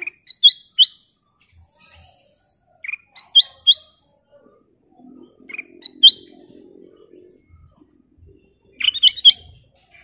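Ruby-throated bulbul (kutilang emas) calling in four short phrases of two or three quick, sharp notes, the last phrase near the end a denser burst.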